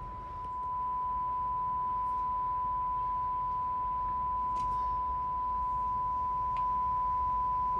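Steady, high-pitched single-pitch test tone from an FM signal generator's modulation, received and played through the Kenwood KR-9600 receiver during a stereo-separation check. It steps up slightly in loudness about half a second in, and a few faint clicks sound over it.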